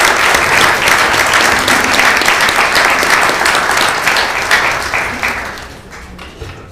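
Audience applauding, a dense patter of many hands clapping that thins out and dies away about five to six seconds in, leaving a few last claps.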